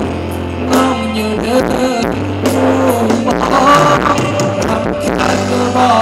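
Thai ramwong dance music from a live band, with a singer over bass and drums keeping a steady beat.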